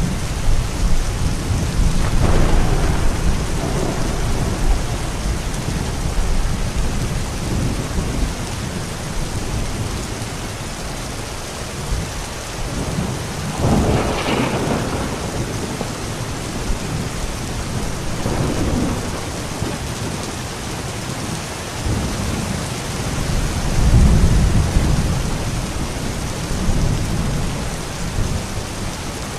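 Steady rain with thunder rumbling on and off, swelling and fading several times; one brighter, sharper peal about halfway through and deep rolls near the start, about four-fifths through and at the end.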